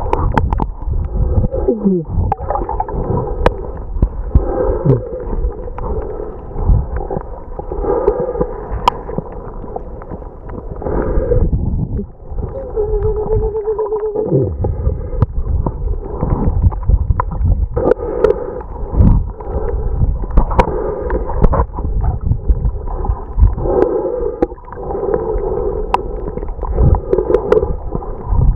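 Muffled underwater sound picked up inside a camera's waterproof housing: water gurgling and sloshing around the camera with a low rumble, swelling every couple of seconds, and sharp clicks scattered throughout.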